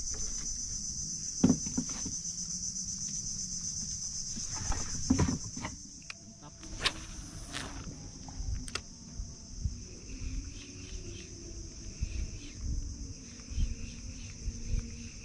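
Insects in the mangroves buzzing steadily at a high pitch, loud for the first half and fainter after. A few knocks sound in the first five seconds, and a brief hiss about seven seconds in.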